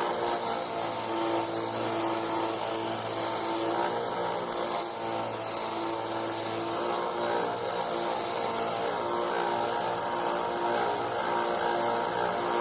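Bench sander-grinder motor running steadily while the knife's black canvas handle scales are pressed against the abrasive for rough shaping, giving three passes of harsh grinding hiss in the first nine seconds.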